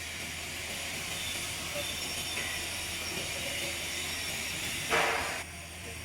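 Steady hiss over a low, even hum, with a short louder rush of noise about five seconds in.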